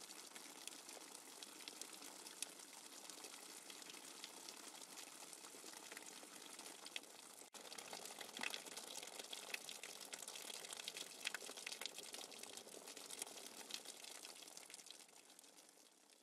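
Steady rain falling on shallow standing water, an even hiss dotted with many separate drop splashes. It breaks off for an instant about halfway, comes back slightly heavier, and fades out at the end.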